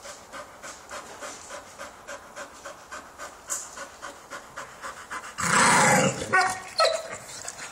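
Red-nosed pit bull panting quickly, about four breaths a second, while licking and gnawing a clay brick. About five and a half seconds in comes a sudden loud noisy burst lasting under a second, followed by a few short pitched sounds.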